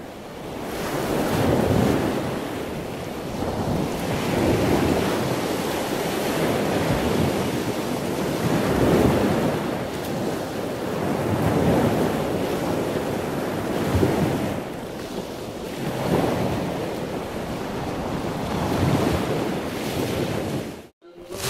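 Ocean surf: waves washing in and drawing back, swelling about every three to four seconds, then cutting off suddenly near the end.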